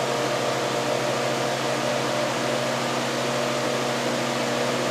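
Induction motor spinning the Perepiteia generator's magnetically coupled rotor with its coils under load, a steady whirring hum. The builder says the system is accelerating.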